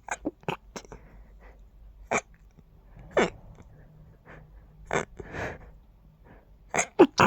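A person stifling sneezes: a run of short, quiet, stifled sneezes. Four come in quick succession in the first second, single ones follow at intervals, and a louder cluster of three comes near the end.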